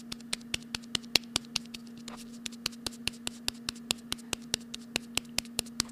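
Rapid, even clicking, about five clicks a second, over a steady low hum.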